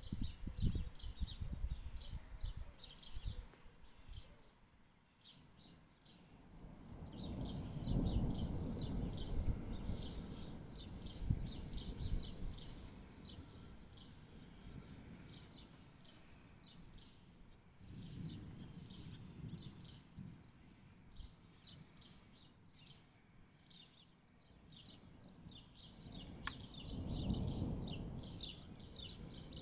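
Small birds chirping rapidly and continuously, while low rumbles of distant thunder swell and die away three times, the longest lasting several seconds.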